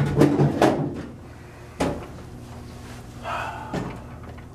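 Metal clunks and rattles from a snack vending machine being handled: a quick cluster of knocks at the start and a single knock about two seconds in, over a low steady hum.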